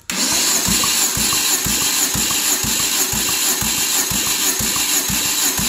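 Starter motor cranking a Ravon R2's B12D2 1.2-litre four-cylinder petrol engine for a cold compression test on cylinder one. It makes an even chugging of about four compression pulses a second, starting abruptly, under a steady whirring hiss.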